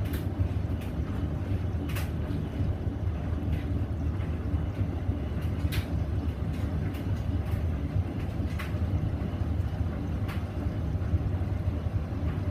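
Hoover VisionDynamic washing machine running its final rinse: a steady low hum with a few brief light clicks at irregular intervals.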